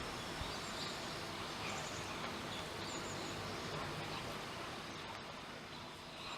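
Steady background noise with a few faint, brief bird chirps.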